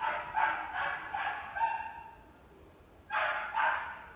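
Small brown mixed-breed puppy yipping: a quick run of about five high-pitched yips, then two more after a short pause.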